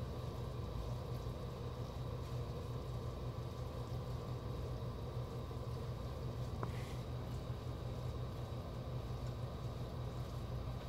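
Steady low mechanical hum with a few faint steady tones, and a single brief click about six and a half seconds in.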